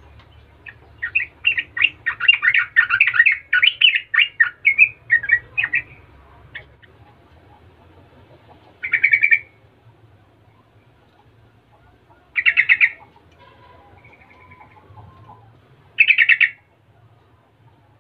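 Yellow-vented bulbul singing: a run of rapid, chattering notes for about five seconds, then three short, quick trills a few seconds apart.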